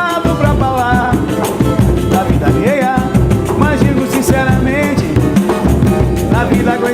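Samba-pagode band playing, with drums and percussion keeping a steady beat under a melody line.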